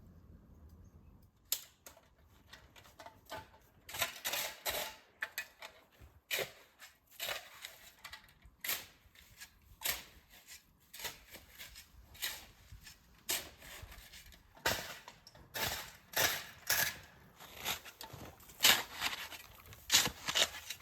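Footsteps crunching through snow at a slow walking pace, about one step a second, starting about a second and a half in.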